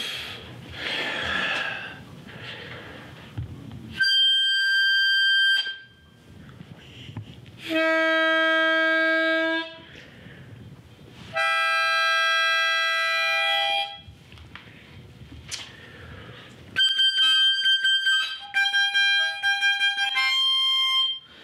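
Harmonica played: three long held notes of about two seconds each with pauses between, then a quick run of short notes near the end.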